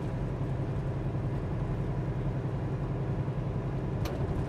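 Semi truck's diesel engine running steadily while driving, heard from inside the cab as a low drone with road noise. A single brief click about four seconds in.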